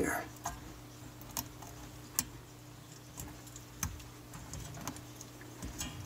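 Scattered small clicks and taps of fingers handling the plastic retaining clip and plunger of a dishwasher drain solenoid, with a faint steady hum underneath. The sharpest click comes about two seconds in.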